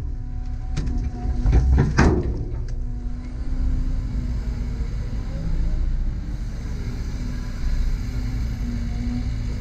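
Wet mud and dirt dumped from an excavator bucket thudding into a dump truck bed, with heavy thumps about one and a half to two seconds in. A CAT 320 excavator's diesel engine and hydraulics run steadily underneath as it swings back to dig.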